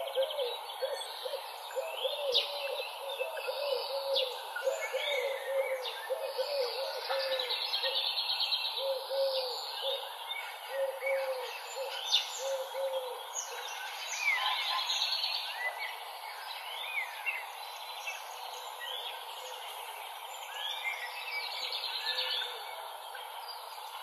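Several songbirds singing and chirping at once, with overlapping trills and high chirps. Under them, a low, rapidly repeated call goes on for about the first half and then stops.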